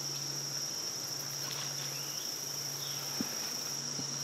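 Steady high-pitched insect chorus, with a faint tap about three seconds in.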